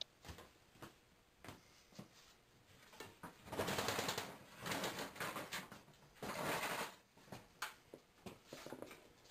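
Corded electric drill run in three short bursts, turning a steel rod that winds 12-gauge Kanthal resistance wire into a tight coil through a wooden jig, with a rapid clicking clatter. A few light clicks come before the first burst.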